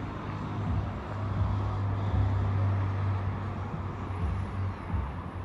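A heavy diesel engine running with a low, steady rumble. It swells a little for a couple of seconds in the middle, over general yard noise.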